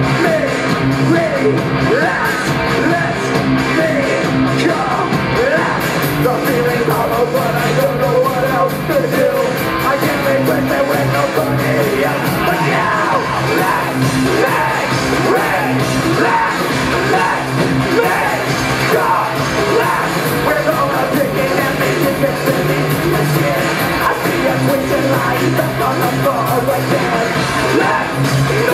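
Live rock band playing loudly: drums and cymbals, electric guitar and keyboard, with shouted vocals over them.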